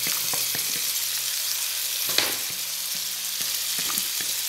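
Chopped onion and salt cod sizzling in olive oil in an electric skillet, a steady frying hiss, with a few light clicks of a plastic spatula against the bowl and pan as the desalted, shredded cod is tipped in; the sharpest click comes about two seconds in.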